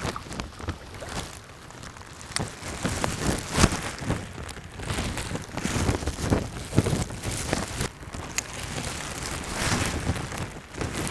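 Rain falling, with many irregular sharp drop hits and wind noise on the microphone.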